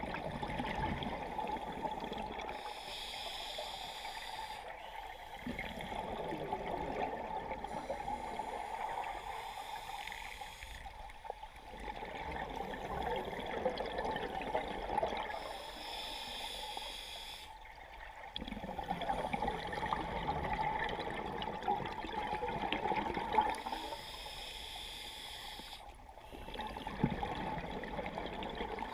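Scuba diver breathing through a regulator underwater: long gurgling bursts of exhaled bubbles alternate with quieter inhalations, about one breath every six to seven seconds, roughly four breaths in all.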